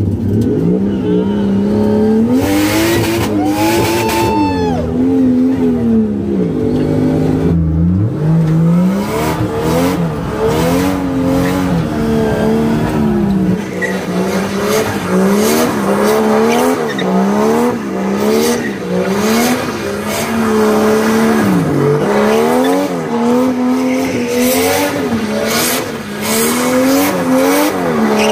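Nissan R34 Skyline drift car's engine revving up and down again and again, with tyres squealing as it slides through a drift. The first half is heard from inside the cabin, the second half from outside the car.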